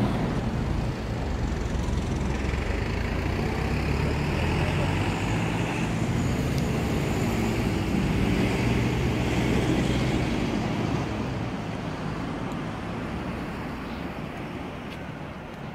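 Low rumble of motor-vehicle traffic, an engine hum that swells to its loudest about two-thirds of the way through and then fades away.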